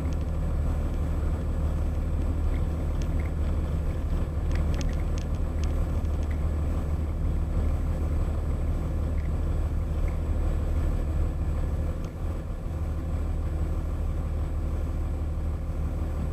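A car driving slowly, its engine and road noise a steady low hum as heard from inside the car, with a few faint clicks about four to five seconds in.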